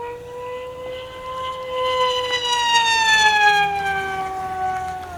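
Durafly EFX Racer's brushless electric motor and propeller, running flat out on a 5S battery, give a high-pitched whine during a fast pass. The whine swells and rises slightly in pitch, then falls steadily in pitch as the plane goes by and away.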